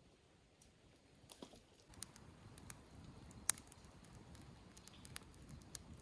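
Faint, scattered light clicks and taps over a soft low rustle, starting about two seconds in, with one sharper click near the middle.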